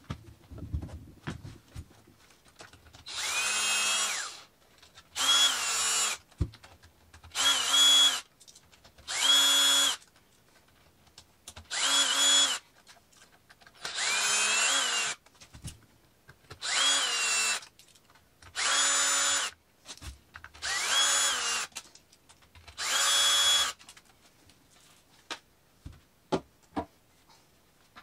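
Cordless drill-driver with a T35 Torx bit backing out the screws of a transmission's mechatronic cover: ten short runs of motor whine, each about a second long and one to two seconds apart. A few light clicks near the end.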